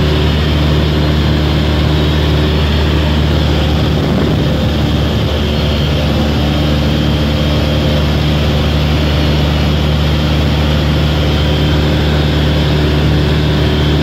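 Piper Super Cub's piston engine and propeller running steadily in flight, heard inside the cabin as a low, even hum under a constant rush of noise.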